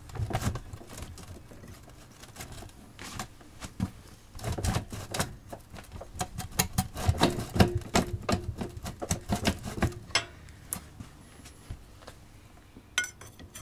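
Irregular runs of sharp metallic clicks and knocks as a small pry bar and gasket scraper are wedged and wiggled in the tight joint between a pressure washer's engine and its pump, trying to break the pump free. The clatter thins out in the last few seconds.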